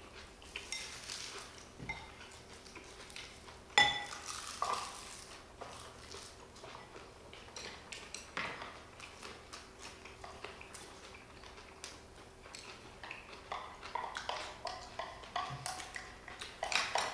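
Metal spoons and chopsticks clinking and scraping against ceramic bowls as rice is mixed and eaten, with many small taps and a sharp clink about four seconds in.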